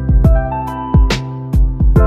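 Intro music: held chords over a steady drum beat.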